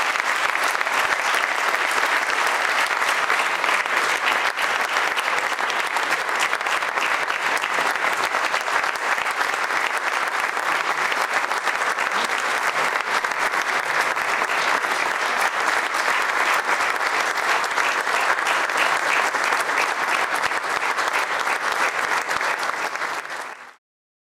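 Audience applauding steadily, then cut off abruptly near the end.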